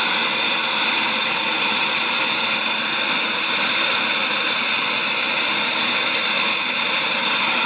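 Small turbine engine of a Freewing F-22 model jet running steadily on the ground: a constant high whine over a rush of exhaust air.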